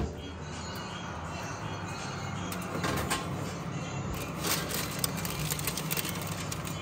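An oven door clicks open, then a metal baking tray scrapes and clinks as it is slid out along the oven's wire rack, over a steady low hum.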